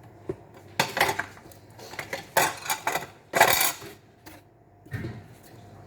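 Kitchenware clattering: a string of sharp clinks and scrapes of metal and dishes, about seven separate hits with the loudest near the middle.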